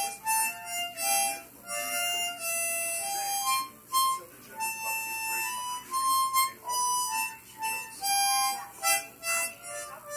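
Harmonica played solo: a melody of single notes, some short and some held, with no accompaniment.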